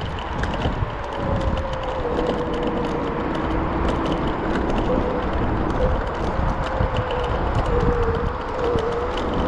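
Ride on a Yimi S600 three-wheeled electric scooter: wind buffeting the microphone, a steady whine from the scooter's electric motor that wavers slightly in pitch, and a patter of small clicks and rattles.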